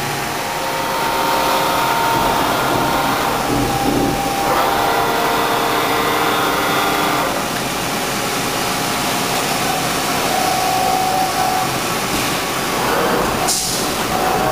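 Dainichi MG75 CNC lathe running under power: a steady mechanical hum with whining tones that shift a couple of times, and a short hiss near the end.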